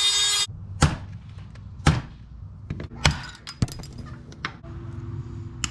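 Handheld rotary tool with a cut-off wheel grinding through a pit bike's drive chain, a high whine with many overtones that stops abruptly about half a second in. After it come about six sharp knocks and clanks, roughly one a second.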